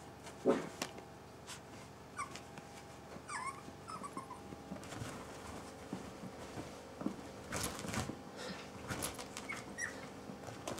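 Italian greyhound puppies playing: a few short, high whimpers that fall in pitch, among scattered bumps and taps from their paws and bodies, with a sharp knock about half a second in.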